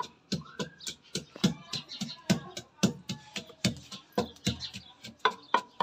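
Wooden pestle pounding garlic and ginger in a wooden mortar into a paste, about three strikes a second.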